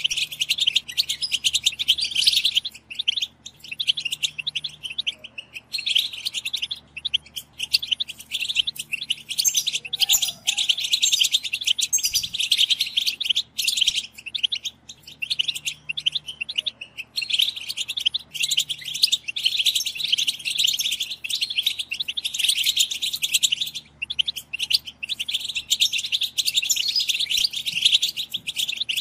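A group of European goldfinches chattering together in a dense, continuous stream of quick high twittering chirps with only brief pauses. This is goldfinch 'betbeta', the rapid chatter call of the female goldfinch.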